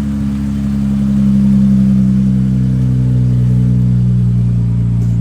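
2023 Dodge Charger's engine idling after a remote start from the key fob, a steady low hum whose pitch eases slightly down as the idle settles.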